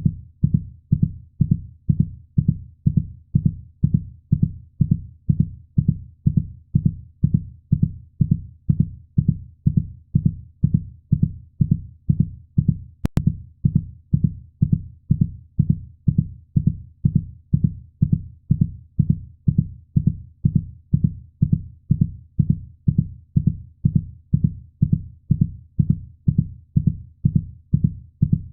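Heartbeat sound: a steady, even rhythm of low, muffled thumps that goes on without a break.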